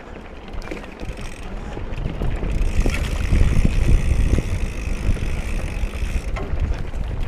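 Mountain bike riding down a dirt trail: tyres on dirt, rattling and knocking from the bike, and wind on the action-camera microphone. It gets louder about two seconds in as speed picks up.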